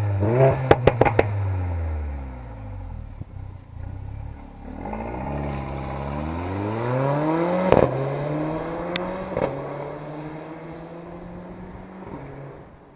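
A stock Mercedes-AMG A45's turbocharged 2.0-litre four-cylinder engine and exhaust. A few sharp crackles about a second in as the revs fall. Then it accelerates away with rising pitch, gives a loud crack about halfway through as the pitch drops, and runs on at a steadier, lower pitch, fading as the car drives off.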